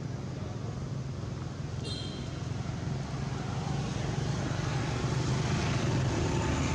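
A steady low motor-like hum with hiss over it, growing a little louder after about three seconds, and one brief high chirp about two seconds in.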